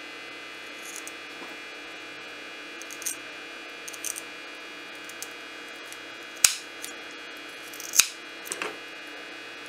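Kitchen scissors snipping through the hard-boned fins of a small snapper bluefish: several faint snips, then two sharp snips about a second and a half apart in the second half. A steady electrical hum runs underneath.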